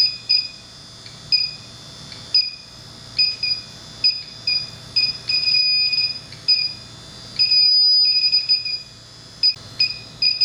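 Inficon TEK-Mate electronic refrigerant leak detector beeping in short, irregular chirps, which run together into a steady tone for about a second and a half past the middle. The detector is picking up a little of an R-410A leak from a corrosion pinhole in the coil.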